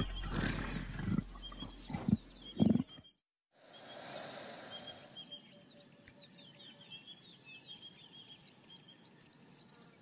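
A leopard snarling and growling in several loud, rough bursts over the first three seconds. After a short silence comes a faint background of repeated short, high chirps.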